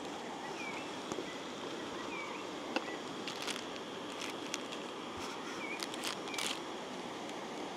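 Hands unfolding a collapsible camping cup, then tearing open and crinkling a coffee bag's wrapper: scattered crinkles and short rips, the longest about halfway through and again near the end, over a steady hiss.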